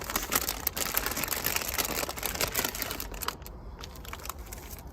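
Plastic packaging crinkling and rustling with many small clicks as kit pieces are handled, for about three seconds before it dies down.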